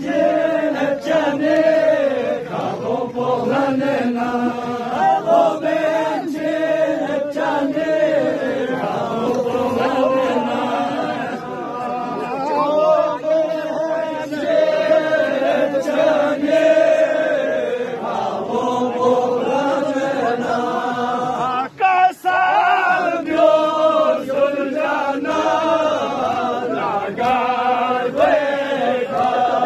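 A group of voices chanting a noha, a Shia mourning elegy in Balti, in unison.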